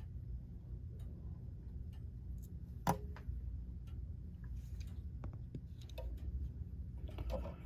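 Faint small clicks and taps from handling a brass clock bushing and measuring tools at the bench while its width is checked, with one sharper click about three seconds in, over a low steady hum.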